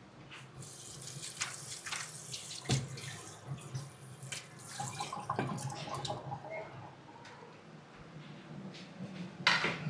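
Water running from a kitchen tap into a sink, with a few light knocks.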